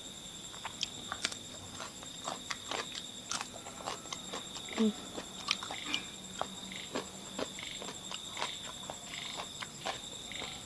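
Close eating sounds, irregular clicks and smacks of chewing and biting, over a steady high chirring of crickets.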